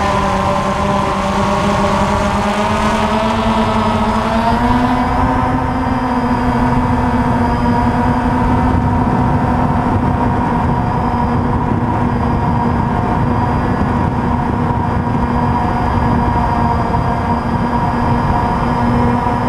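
DJI Phantom FC40 quadcopter's four electric motors and propellers whining, heard from the drone's own camera as it climbs. The pitch rises about four to five seconds in, then holds steady over a constant rush of prop wash and wind.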